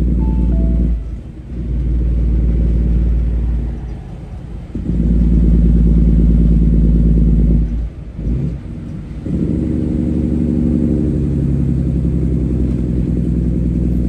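Semi truck's diesel engine pulling under load. It drops off briefly three times, about a second in, around four seconds and around eight seconds, and picks up again after each, in the pattern of gear changes.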